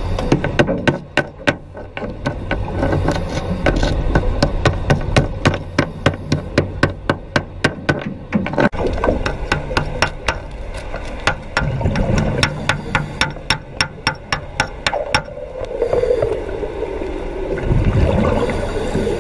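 Underwater welding arc crackling as a rapid run of sharp clicks, several a second, over a low bubbling rumble, with a few short pauses.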